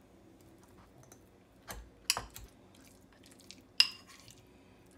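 Metal spoon clinking against a ceramic bowl while mashing avocado: a few sharp clinks, the loudest about four seconds in with a brief ring.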